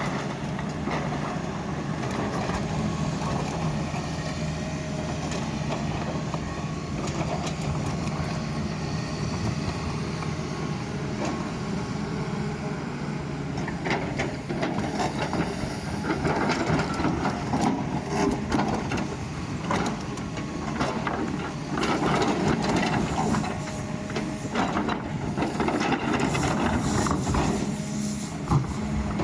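Doosan excavator's diesel engine running steadily while it digs, with scraping and clanking from the bucket working the ground; the clatter gets louder and busier from about halfway through.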